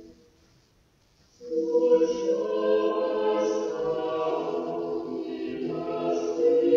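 Choir singing: after the previous music dies away and about a second and a half of near silence, the voices enter together and hold slow, sustained chords.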